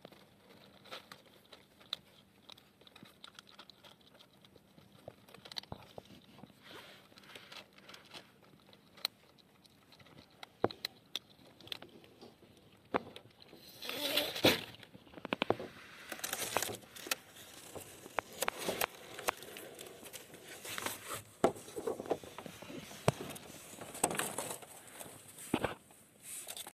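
Kittens moving about on cardboard and paper in a plastic crate: scattered crinkling, rustling and small clicks, busier and louder from about halfway through.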